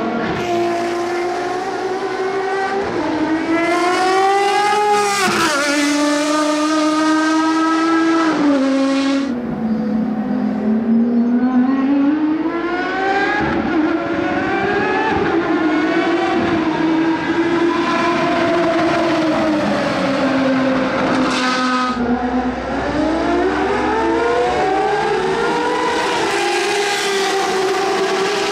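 Ferrari FXX's 6.3-litre V12 engine at racing speed, its pitch climbing under acceleration and dropping sharply at each gear change, then falling off and building again several times.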